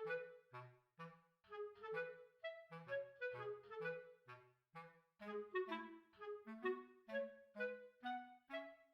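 Background music: a bouncy tune of short, detached notes with a woodwind-like lead over a stepping bass line.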